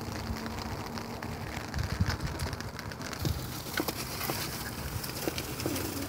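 Handling noise: fingers rubbing against the phone's microphone, with dry nest grass rustling and crackling in short, scattered clicks.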